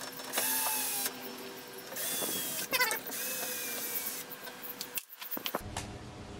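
Cordless drill backing screws out of a cabinet hinge, running in three short bursts, each with a whine that falls slightly in pitch, and stopping about four seconds in.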